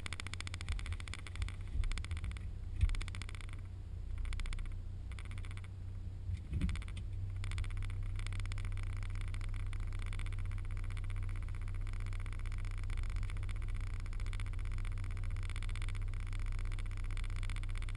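VW R32's VR6 engine idling steadily, a low hum heard from inside the cabin, with a few light knocks in the first several seconds.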